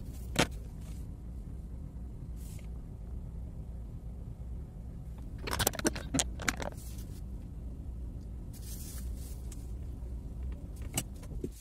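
Car engine running, heard from inside the cabin as a steady low rumble. A sharp click sounds about half a second in, and a short cluster of knocks and clicks comes around six seconds in.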